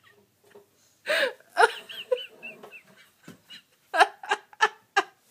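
A woman laughing hard. After about a second of near-silent laughter come high-pitched, squeaky cackles, then a quick run of short, sharp bursts of laughter near the end.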